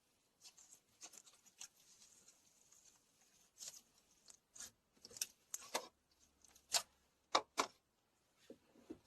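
Slime being squished and poked by hand: a run of small, irregular clicks and pops, with a few sharper ones in the second half.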